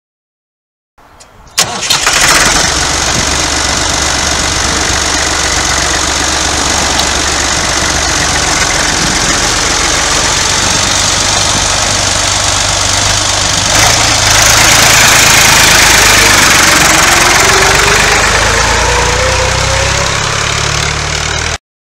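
Massey Ferguson 20F tractor's newly fitted diesel engine starting up and then running steadily. After a cut about two-thirds through, the tractor drives along the road with a whine rising in pitch. The sound cuts off suddenly near the end.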